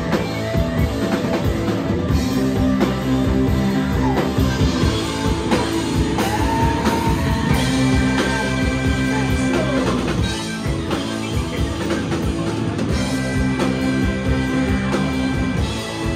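Live rock and roll band playing: electric guitars and a drum kit, with saxophones holding long notes over the groove.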